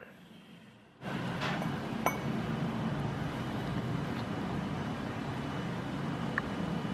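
A cat eating from a bowl: chewing, with a few sharp clicks against the bowl, over a steady low rumble. The first second is nearly silent before the sound comes in.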